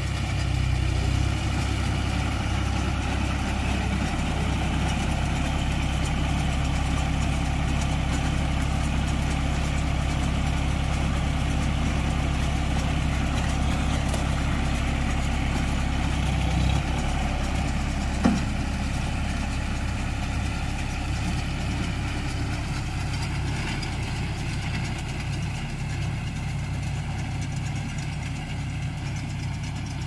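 John Deere tractor's diesel engine running steadily as it pulls a working Bharat round baler, with one sharp click about eighteen seconds in.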